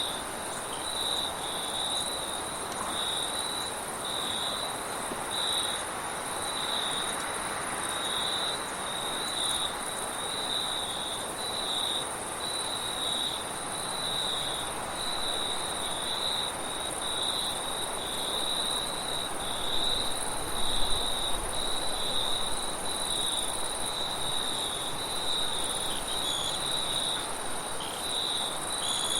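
Crickets chirping in regular pulses about once a second, over a steady high insect trill and a soft rush of wind, with a louder swell of wind around twenty seconds in.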